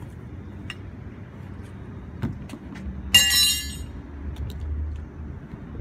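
Sheet metal struck once, a sudden sharp clang with a short ring about three seconds in, after a dull knock a moment before, over a low steady rumble.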